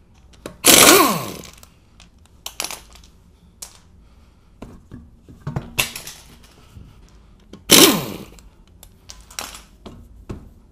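Impact wrench spinning off wheel lug bolts in three loud bursts, about a second in, near six seconds and near eight seconds, each ending in a falling whine as the tool spins down. Short knocks and clinks of the loosened bolts and the wheel being handled come between the bursts.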